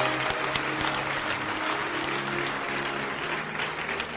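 Congregation applauding over soft sustained background music; the clapping dies down near the end.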